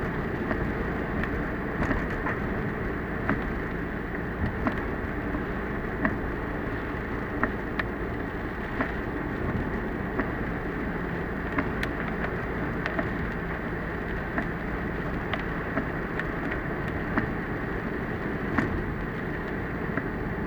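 Car driving in heavy typhoon rain, heard by a dashcam inside the car: a steady rush of road and rain noise, with a sharp tick about every second and a half.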